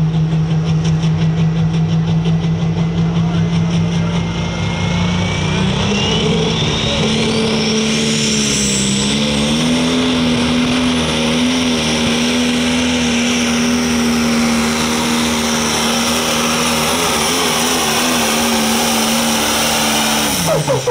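Pro Stock pulling tractor's diesel engine running flat out through a pull. Its pitch steps up about five seconds in and holds high, while a high whine climbs in pitch. Near the end the engine note drops away sharply as the throttle comes off.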